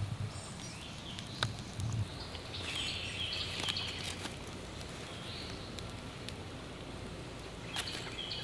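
Birds calling with short, stepped high chirps in two spells, a couple of seconds in and again near the end, over a steady outdoor hiss. A few faint clicks are scattered through it.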